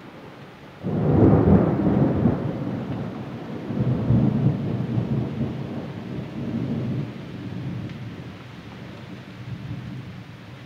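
Thunder: a loud rolling rumble breaks in suddenly about a second in, swells again around four seconds, and slowly dies away.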